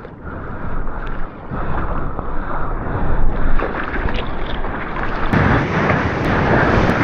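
Ocean water rushing around a surfboard, with wind buffeting the action-camera microphone, as a surfer goes for a right-hand wave in big surf. The rush grows louder about five seconds in.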